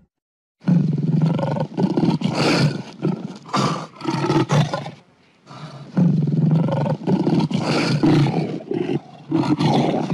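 Lion roaring: a series of deep, loud roars and grunts in two long bouts, with a short break about halfway through. The calls start a little under a second in.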